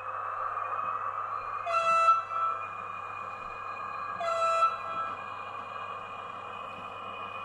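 H0-scale ÖBB diesel locomotive model sounding its horn twice, about two and a half seconds apart, the second blast slightly shorter, over a steady hum from the running model.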